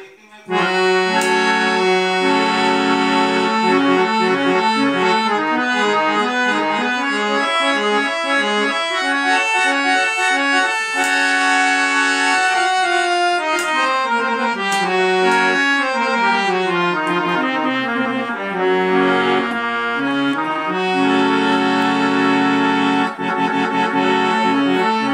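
A four-reed-bank harmonium, its bellows pumped by hand, playing a melody over held low notes. The sound starts about half a second in, and a run of falling notes comes in the middle.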